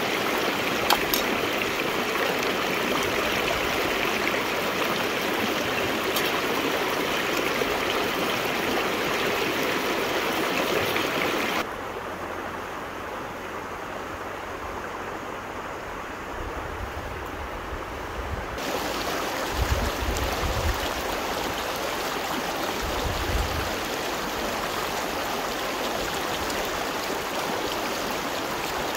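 River water flowing and rushing steadily. About twelve seconds in the sound turns abruptly duller and quieter, then comes back near nineteen seconds. A few low thumps are heard around twenty seconds and again a few seconds later.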